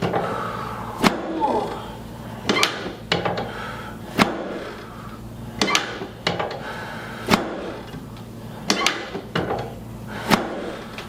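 A series of sharp knocks, about one a second and sometimes in quick pairs.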